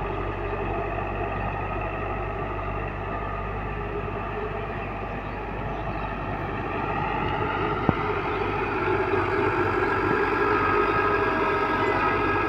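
Excavator's diesel engine running, with its pitch and level rising from about six seconds in as the engine works harder. A single sharp click comes about eight seconds in.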